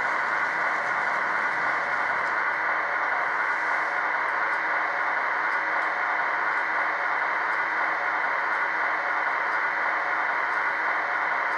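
Steady hiss of electric-locomotive blower fans from a model train's sound decoder, played through the model's small onboard speaker while the locomotive stands still.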